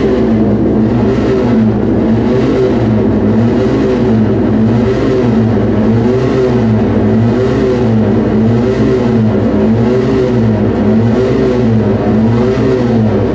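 Loud industrial, dark-ambient electronic drone played live: a steady low hum with a wavering tone that rises and falls about once a second, over a hiss that swells in the same pulse.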